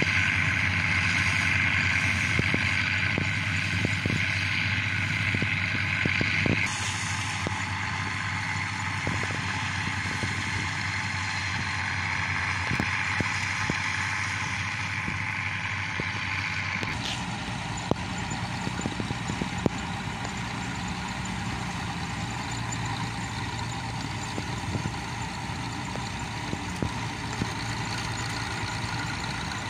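Bizon Z056 combine harvester's diesel engine and threshing machinery running steadily while the combine harvests oats. The drone shifts abruptly in tone twice, about a quarter of the way in and again just past halfway.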